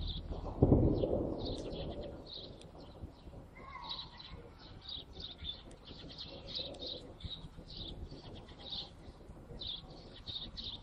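Small birds chirping continually, with one loud weapon report from the clashes about half a second in, echoing for over a second before dying away.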